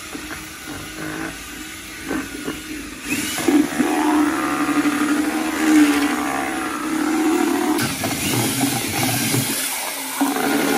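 Cordless drill with a paddle mixer stirring two-part epoxy in a plastic bucket, its motor running steadily and getting louder about three seconds in.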